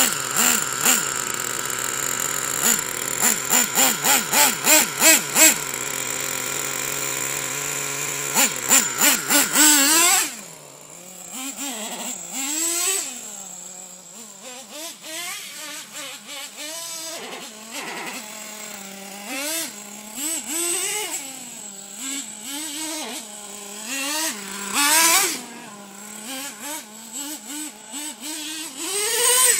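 Traxxas T-Maxx 3.3's nitro two-stroke engine revving in quick, regular blips up close for the first ten seconds. It then drops away sharply as the truck drives off, and its pitch rises and falls at a distance as it is driven around, swelling louder again near the end as it comes closer.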